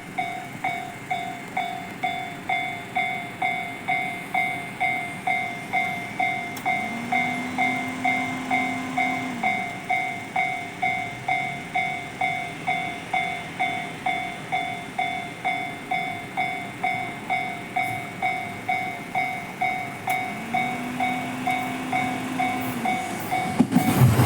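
Japanese railway level-crossing warning bell ringing with an even, repeating clang about twice a second, signalling that a train is approaching. Twice a low tone rises, holds for a couple of seconds and falls away. Just before the end the rushing noise of the arriving JR East E231-series train comes in.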